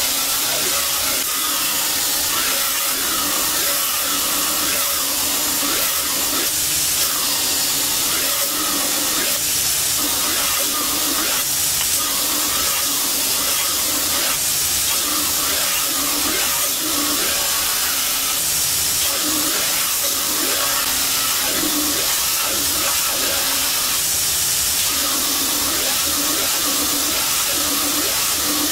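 Belt grinder running with a 440C stainless steel knife blade pressed against the abrasive belt in a bevel jig: a steady, loud grinding hiss that swells and eases slightly as the blade is worked along the belt.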